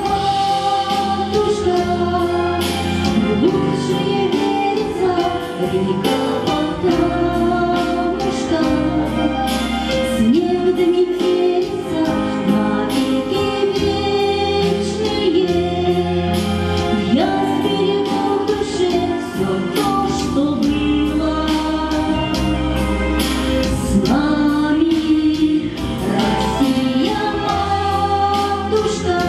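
A woman singing a pop song into a microphone over instrumental accompaniment with backing vocals, amplified through the hall's sound system.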